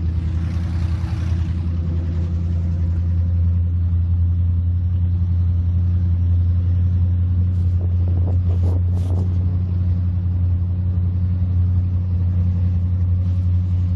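Engines of a Fountain Lightning performance powerboat idling with a steady low rumble, with a couple of brief hissy noises over it.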